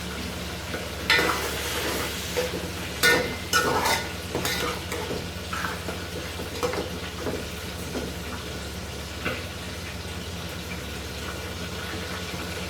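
A metal utensil stirring food in a cooking pot, clinking and scraping against it several times, mostly in the first five seconds, over a steady low hum.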